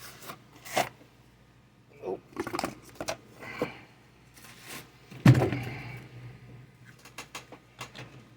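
A cardboard trading-card box and its packaging being handled and opened: scattered rustles and light taps, with one loud thump a little past halfway.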